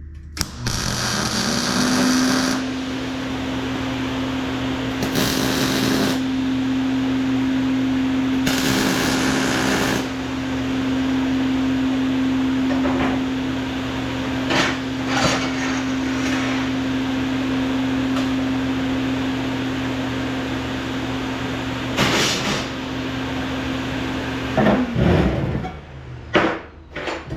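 Electric power tool motor running steadily, with several loud harsh bursts where it works into the steel. Near the end it is switched off and winds down, followed by a few metallic knocks.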